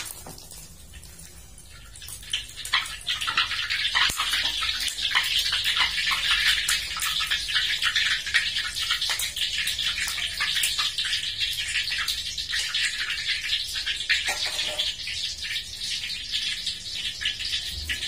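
An egg omelette frying in a wok of plentiful hot oil, sizzling and crackling with spatter. The sizzle swells about two seconds in and stays strong.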